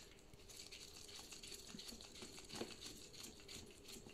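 Faint, irregular small clicks and scratchy rustles of a hand screwdriver turning a screw in the plastic housing of a Samsung PowerBot robot vacuum, with gloved hands handling the plastic part.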